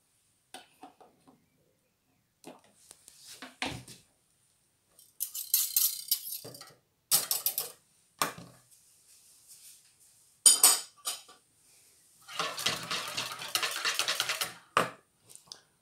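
Wire balloon whisk beating eggs and oil in a mixing bowl: scattered clinks and short scrapes of metal spoon and whisk against the bowl, then a few seconds of fast, continuous whisking near the end.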